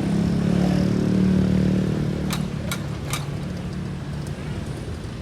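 A large bus engine passing by, growing louder to a peak about a second in and then fading as it moves away. Three sharp clicks follow in quick succession near the middle.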